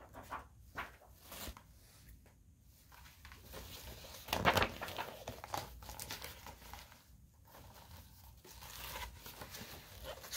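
Paper pages of a picture book rustling and crinkling as they are handled and turned, in scattered short rustles, the loudest about four and a half seconds in.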